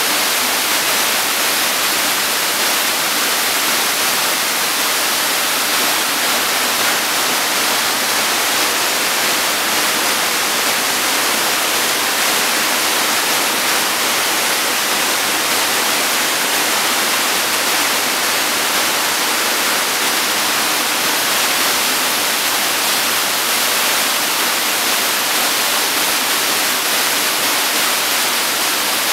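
Steady rushing of a cascading waterfall pouring down stepped rock ledges into a pool.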